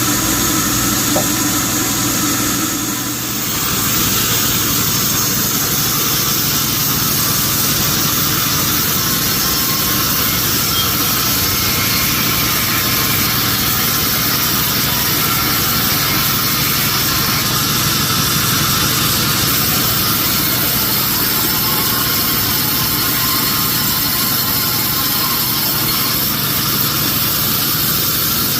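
Sawmill machinery running steadily with a loud engine hum and hiss, dipping briefly about three seconds in.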